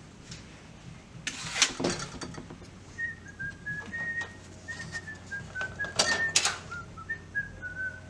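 A person whistling a tune, a run of short notes that step up and down, starting about three seconds in. A few sharp clicks and knocks come through as the microwave's parts and wiring are handled, the loudest near the start and about six seconds in.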